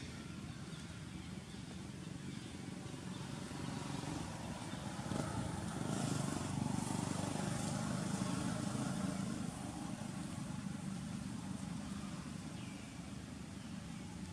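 A motor vehicle passing by: a low engine rumble that builds up, is loudest mid-way, then fades away.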